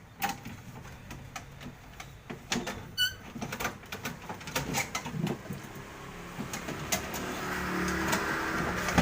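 Scattered clicks and knocks of a single-door refrigerator's evaporator plate being handled and pulled free after its mounting nuts are undone. A short chirp about three seconds in, and a steady noise that builds toward the end.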